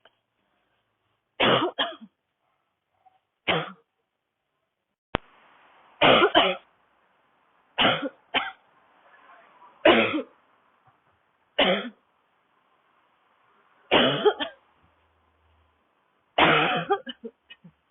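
A woman's dry, barking cough in a coughing fit: about eight short coughs or quick pairs of coughs, one every second or two.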